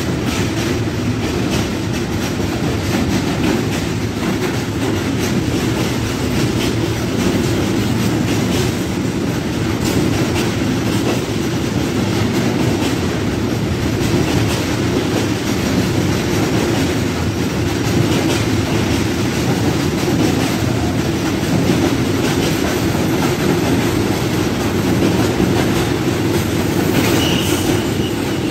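A train running past on the track, a steady heavy rumble of wheels on rail with the clickety-clack of wheels over the rail joints.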